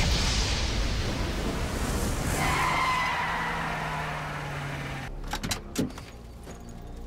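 Movie explosion and fire: a loud rumbling rush that fades away over about five seconds, with a brief high squeal in the middle. Then it cuts to a quieter car interior with a few sharp clicks and knocks.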